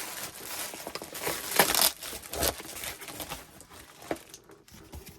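A mailing envelope being opened by hand: irregular crinkling and tearing of the packaging, with the loudest rustles a little before two seconds in and again about halfway through.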